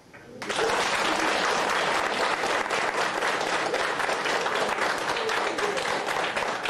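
Audience applauding: the clapping starts suddenly about half a second in, right after the carol ends, and continues at a steady level.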